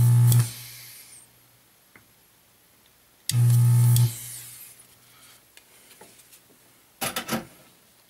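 Vacuum desoldering gun's pump buzzing in two short bursts, drawing solder off the voltage regulator's pins: the first cuts off about half a second in, the second starts about three seconds later and lasts under a second. Near the end comes a quick run of three or four sharp clicks.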